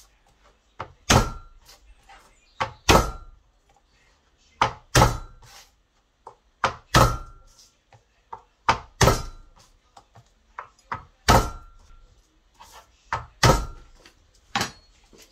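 Flat of a large kitchen knife blade smacked down onto garlic cloves on a plastic cutting board, crushing them. Sharp thuds come about every two seconds, often two in quick succession, some with a faint ring from the blade.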